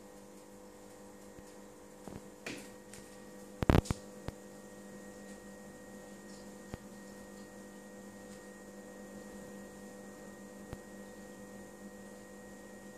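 Steady electrical hum from aquarium equipment. About four seconds in comes a brief cluster of sharp clicks, the loudest sound, with a few fainter knocks just before it.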